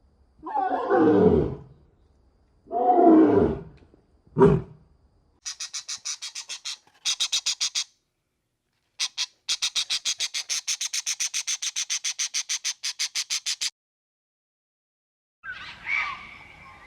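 Three loud animal calls, each falling in pitch, the last one short. These are followed by bursts of rapid, evenly spaced clicking, the longest running about four seconds.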